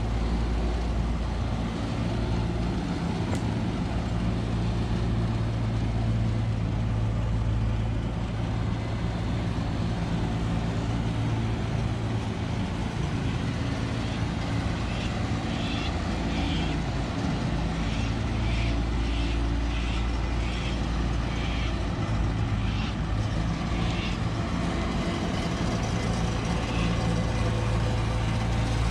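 John Deere 955 combine harvester's diesel engine running at a steady idle, with a cluster of short high-pitched chirps through the middle.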